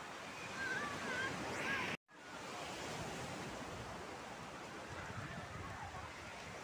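Small waves breaking and washing onto a sandy beach, a steady rush of surf, cutting out for a moment about two seconds in.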